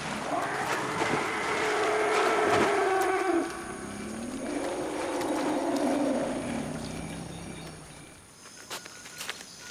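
African forest elephants calling: a long call of about three seconds, then a second call that rises and falls in pitch, then a lower, quieter one that fades out near the end.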